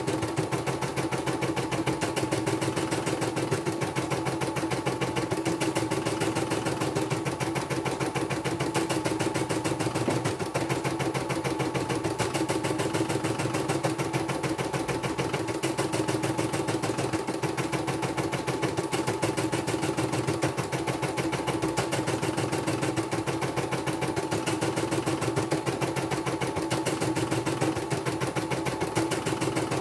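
Computerized embroidery machine stitching steadily, its needle bar running at a rapid, even ticking rhythm as the hoop moves the fabric under the needle.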